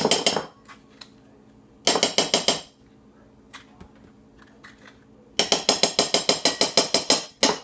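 Spoon clinking and knocking against the bowl while scooping avocado into it, in three bursts of quick strikes, the last and longest running about seven strikes a second.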